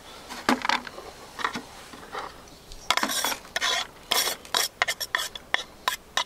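Knife scraping minced green onion off a wooden cutting board into a plastic bowl, the board's edge knocking and rubbing on the bowl: a series of short scrapes and taps, coming quicker near the end.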